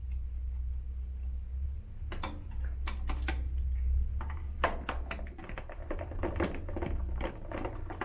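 Irregular clicks and rattles of an elliptical's plastic rear shroud covers being handled and worked loose after their screws are out, starting about two seconds in, over a steady low hum.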